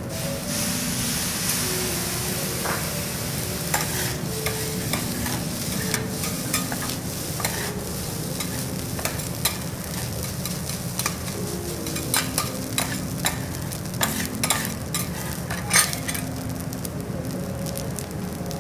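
Garlic fried rice sizzling on a hot steel teppanyaki griddle, loudest near the start, while spatulas scrape and tap against the plate in sharp clicks through the middle as the rice is turned and gathered.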